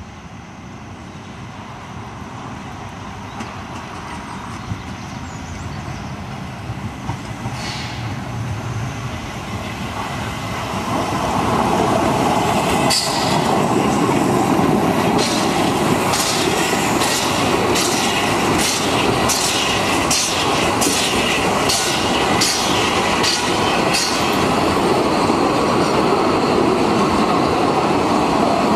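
Narrow-gauge steam locomotive 99 773 and its coaches approaching and passing close by, the sound growing louder over the first ten seconds or so. As the carriages roll past, a run of regular clicks follows, about two a second.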